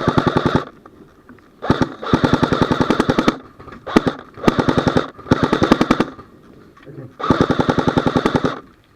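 Airsoft rifle firing on full auto in about six rapid bursts, each lasting from half a second to a second and a half, with short pauses between them.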